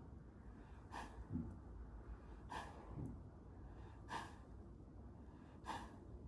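A mare in labour breathing heavily through her nostrils as she lies down, four breaths about a second and a half apart.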